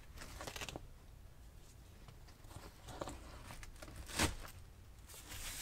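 Faint rustling of a canvas seat-and-cargo liner being shifted and smoothed by hand, with a few short rips as its Velcro backing is pulled free and pressed back down. The loudest rip comes about four seconds in.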